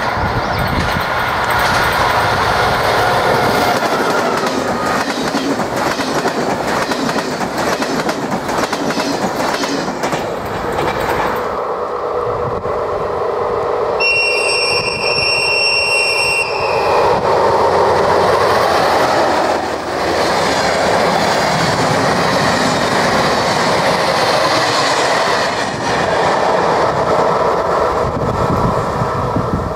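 ZSSK 'Okuliarnik' diesel locomotives passing at speed, twice: a loud, steady engine drone and rumble with wheels clattering over the rails. A high-pitched whistle sounds for about three seconds around the middle.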